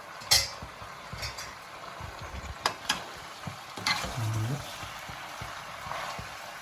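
Chilli chicken sizzling as it is stir-fried in a pan, with a spatula scraping and clinking against the pan several times over the steady hiss of frying.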